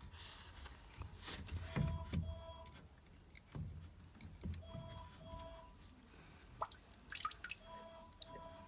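An electronic beeper sounding short double beeps that repeat about every three seconds, with scattered clicks and low knocks in between.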